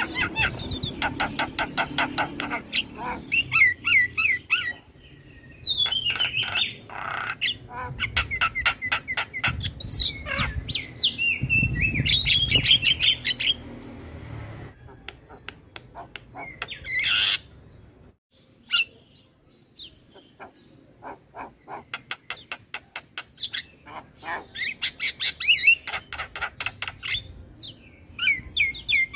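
Javan myna (jalak kebo) singing energetically: fast rattling runs of harsh chattering notes mixed with short squeaky, gliding whistles. The song thins out to a few scattered notes about two-thirds of the way through, then builds back into rapid chatter.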